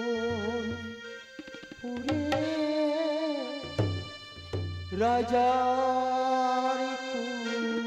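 Singing in a Bengali Manasa devotional song (Manasar gaan): a voice holds long, wavering notes in several drawn-out phrases, the longest starting about five seconds in. Drum strokes and a steady held drone accompany it.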